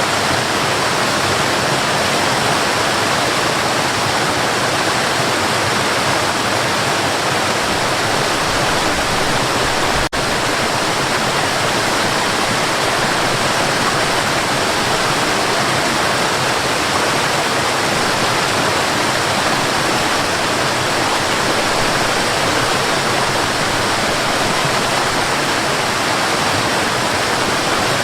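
Mountain river rushing steadily, a continuous even rush of flowing water, with a momentary drop-out about ten seconds in.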